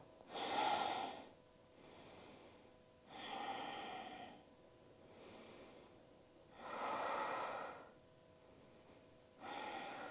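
Slow, deliberate yoga breathing by a woman holding a pose: four clear breaths about three seconds apart, with softer breaths between them.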